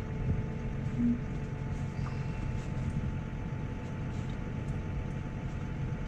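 New Holland tractor's diesel engine running steadily as the tractor drives across a field, heard from inside the cab as a low drone.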